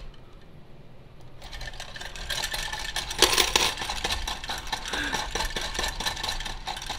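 Battery-powered robotic dog coin bank running: its small electric motor and plastic gears whir and clatter as the toy dog dips its head into the bowl and eats the coins, starting about a second and a half in. Coins clink as they are swept from the bowl into the box.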